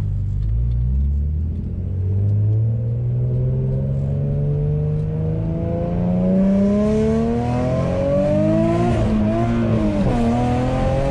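Infiniti G35's 3.5-litre V6 accelerating hard in a pull, heard from inside the cabin. The engine note climbs steadily for about eight seconds, then dips and recovers twice near the end.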